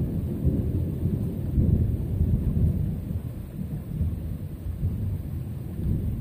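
Thunder rumbling on in a long, uneven roll that slowly weakens.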